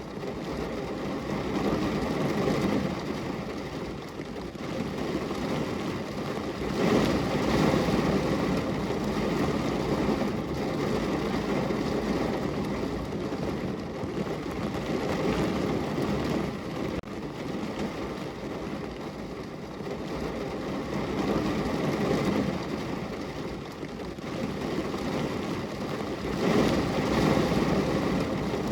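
Rain falling on a car's window: a steady rushing patter that swells and eases every several seconds.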